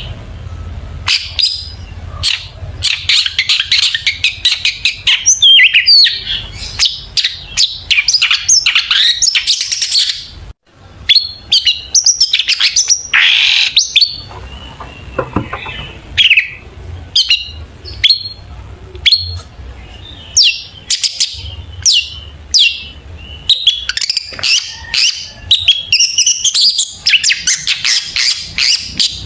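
Long-tailed shrike (cendet) singing vigorously: a fast, varied run of sharp chirps, trills and calls mimicked from other birds. The song breaks off briefly about ten seconds in, with a steady low hum underneath.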